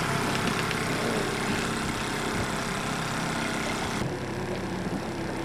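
Boat motor running steadily at trolling speed, about two miles an hour. The hiss above the hum drops away suddenly about four seconds in.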